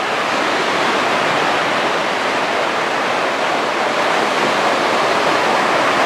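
Sea surf washing in steadily as small waves break in the shallows, a continuous rushing wash.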